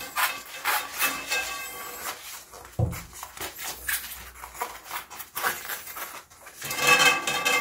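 Gloved hands handling a rubber bicycle tyre and inner tube, rubbing and rustling in short irregular bursts while the tube is worked into the tyre, with a soft low thump about three seconds in.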